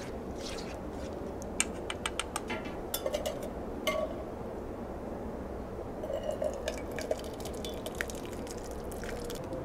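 Spoon stirring and scooping thick red beans and rice in a cooking pot and into a stainless steel camp cup: scattered light clicks and clinks against the pot and cup, with a wet squish of the food, in two clusters.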